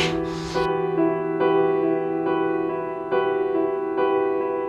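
Slow piano music with a keyboard sound. Notes are struck about once a second over a held chord.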